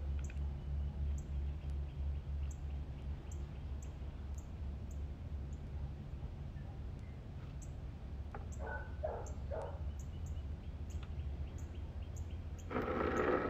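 Steady low hum throughout, with three short pitched sounds in quick succession about nine seconds in and a brief louder noise near the end.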